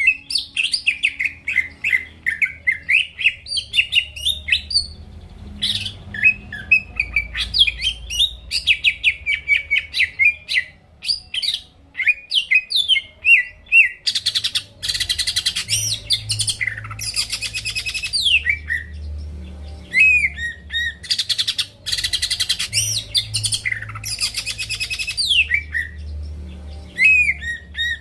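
Green leafbird (cucak ijo) singing vigorously in full song: a continuous, varied run of whistles, slurred notes and rapid chattering trills. In the second half there are several dense rattling phrases.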